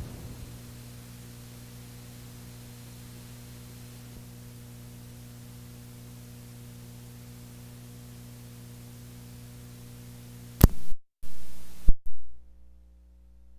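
Cassette tape hiss with a steady low mains hum on the blank tail of the tape. About ten seconds in come two sharp clicks with a brief cutout between them, and then the tape hiss stops, leaving only a faint hum.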